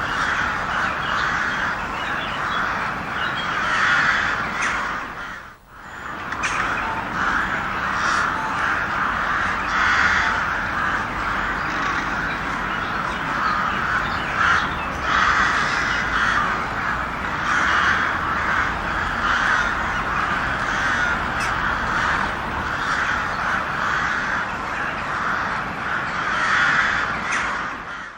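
Many crows cawing at once, their harsh calls overlapping without pause, with a brief break about five and a half seconds in.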